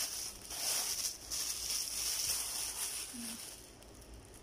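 Plastic wrapping crinkling and rustling as a shoe is pulled out of it, dying away near the end.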